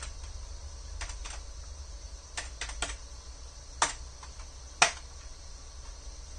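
Keys typed on a computer keyboard: a handful of separate key clicks spread out, the last and loudest about five seconds in, entering a DOS command.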